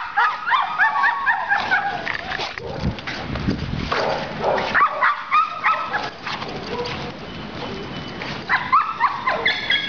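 Pit bull giving short, high-pitched yips and whines in quick runs, three times.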